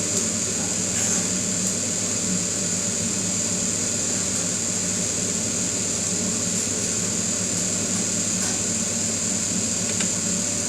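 A motor and fan running steadily, with an unbroken rushing noise over a low hum.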